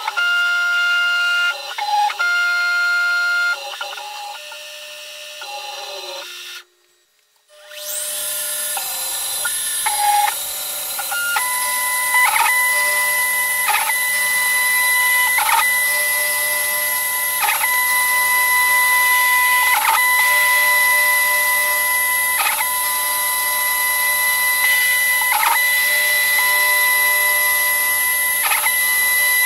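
Sped-up sound of a CNC-converted BF20L benchtop milling machine cutting plastic: its stepper motors and spindle are pitched up into high whining tones that shift in steps. It breaks off briefly about seven seconds in, then the spindle spins up. After that comes a steady high whine with a short regular pulse about every two and a half seconds as the end mill makes its passes.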